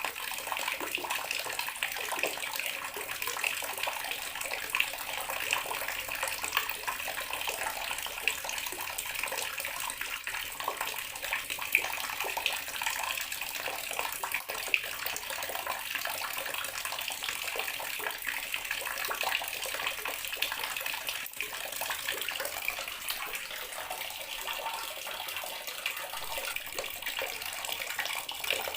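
Water tap running steadily into a bathroom sink, a continuous splashing stream with fine crackly spatter.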